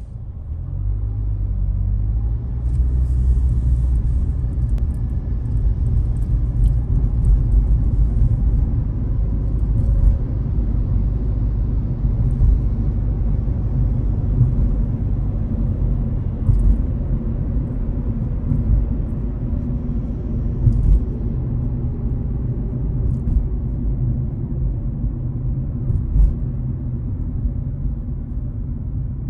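Low, steady rumble of a car's engine and tyres on the road, heard from inside the cabin while driving. It builds up over the first couple of seconds, with a few faint ticks over it.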